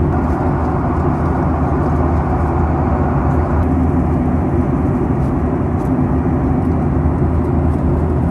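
Steady in-flight cabin noise of a Boeing 737-800: a constant drone of the CFM56-7B turbofan engines and airflow over the fuselage, strongest in a low hum.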